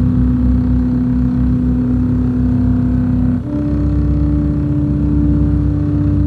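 Low, droning electronic score: a sustained synthesizer chord over a pulsing bass, shifting to a new pitch about three and a half seconds in.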